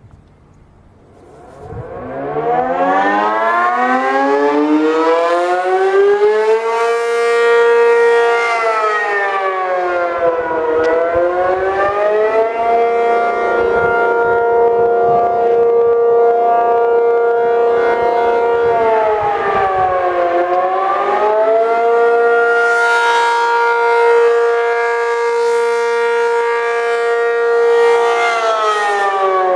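ACA P-50 electromechanical siren winding up from rest about a second in, then sounding the Attack signal: its tone climbs, holds high for several seconds, dips briefly and climbs back, twice, and starts another dip near the end. The sound swells and fades in brightness every few seconds as the rotating siren turns.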